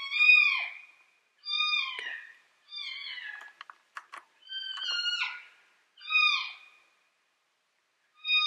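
Electronic predator game call (FoxPro) playing a recorded distress cry: a high, falling mewing call repeated about once a second, each cry a bright stack of overtones, with a pause before the last one near the end. A few faint clicks in the middle.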